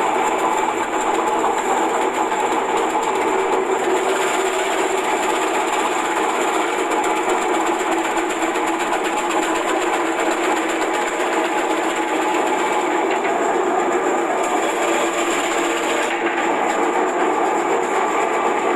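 Electric vegetable slicing machine running steadily as onions are fed through its hopper and sliced: a dense, continuous clatter from the motor-driven cutter, with a thin steady high whine.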